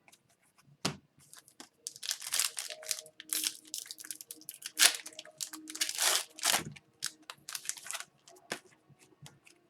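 Foil wrapper of a hockey card pack being torn open and crinkled, in a string of irregular rustles and crackles.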